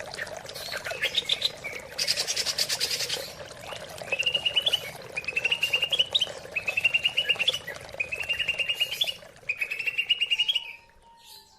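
Greater green leafbird (cucak ijo) singing: a short rasping burst, then a run of five fast trilled phrases of about a second each, each rising a little in pitch, over a steady background hiss. The song stops shortly before the end.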